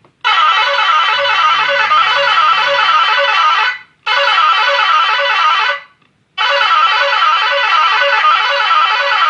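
Electronic telolet bus-horn melody from a 12 V horn module, played loud through a horn-shaped (toa) loudspeaker. It comes as three blasts of a warbling multi-tone tune, about three and a half seconds, two seconds and three seconds long, with short breaks between.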